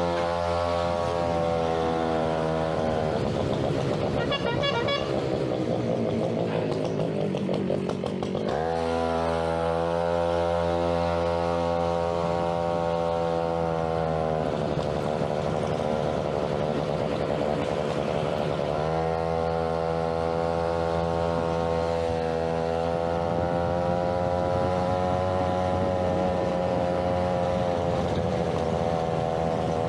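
Small 63cc (71cc) Huasheng two-stroke engine of a China Ped X5 stand-up scooter running on the move. Its speed eases off about three seconds in, climbs quickly near nine seconds, sags again around fifteen seconds and picks back up near nineteen.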